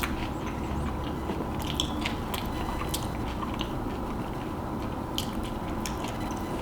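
Chewing, with a run of small crisp crunches, of a deep-fried Jollibee peach mango pie.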